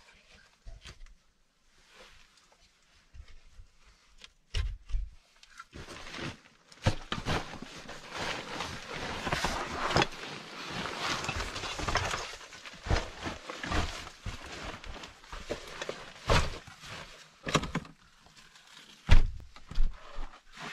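Backpack and clothing rustling as a large backpack is taken off and handled, with dull thumps and knocks scattered through. The first few seconds hold only light knocks; the rustling then runs on for most of the rest, and the loudest thump comes near the end.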